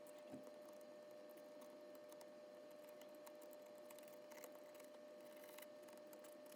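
Near silence: a faint steady hum with scattered faint small clicks and ticks.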